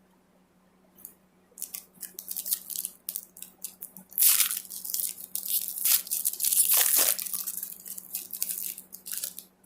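Crinkling and rustling of trading cards and their foil pack wrapper being handled, in a quick run of crackly bursts that grows busier about four seconds in.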